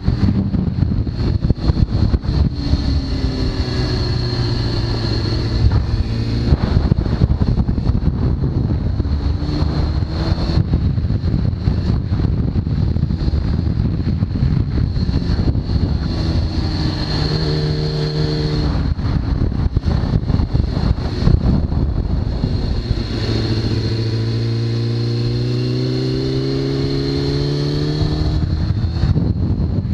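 2003 Kawasaki ZX-6R's inline-four engine through a full Hindle titanium exhaust, pulling hard several times with the pitch rising on each pull as it accelerates through the gears. Heavy wind rush at riding speed runs under it, along with a steady high whine.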